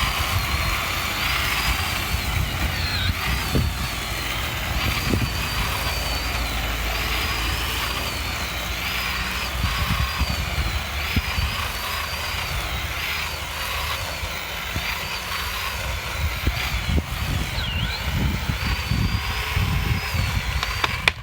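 Chainsaw running at high speed, cutting through the trunk of a dead pine, steady throughout with its pitch wavering slightly under load, then cutting off at the end.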